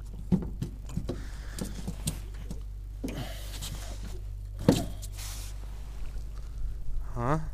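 Handling noise in an aluminium boat: scattered knocks and clicks, rustling of clothing and a louder knock a little past halfway, as a freshly caught fish is handled, over a steady low hum.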